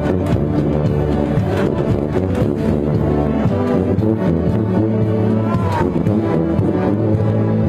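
Brass band playing, heard close to the sousaphones, whose loud sustained low notes carry under the band with drum hits.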